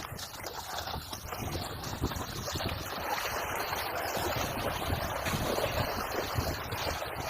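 Wind buffeting the microphone, a steady rushing noise with low rumbling gusts throughout.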